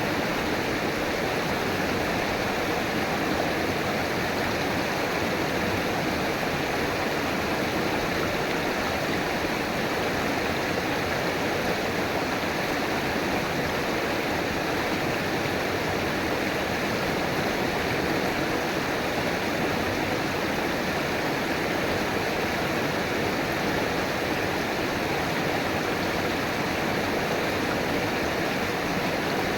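River water flowing and rushing steadily, an even, unbroken wash of sound with no distinct splashes.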